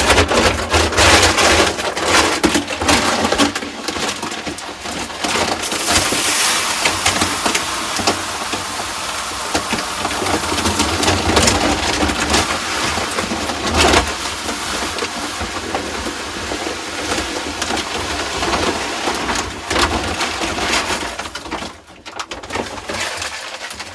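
Grain from a 50-pound feed bag being poured into a large chicken feeder: a steady rushing hiss of kernels pouring, with a few knocks along the way, tapering off near the end as the bag empties.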